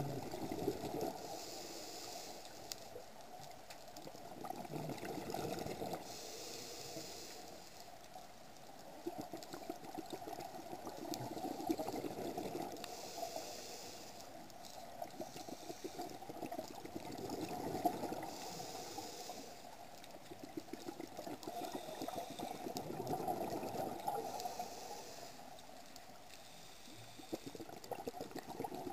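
Scuba regulator breathing heard underwater: a short hiss of inhalation followed by a longer crackling rush of exhaled bubbles, repeating about every five to six seconds, about five breaths in all.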